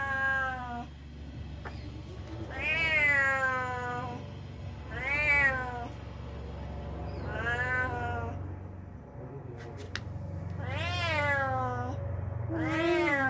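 A domestic cat giving a string of long, drawn-out meows, one about every two to three seconds, each rising and then falling in pitch; the owner presents the cat as angry.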